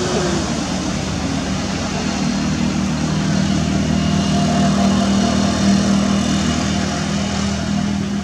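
A steady engine drone, a low hum that grows louder toward the middle and eases off near the end.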